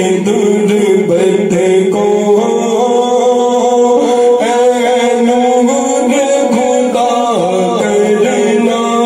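A man singing a naat, an Urdu devotional poem in praise of the Prophet, unaccompanied into a microphone, in long held notes that waver and bend.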